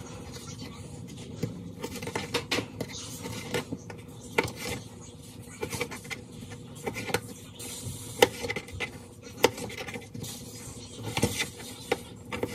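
Chef's knife cutting sausage on a plastic plate: irregular sharp taps as the blade goes through and knocks the plate, about one or two a second.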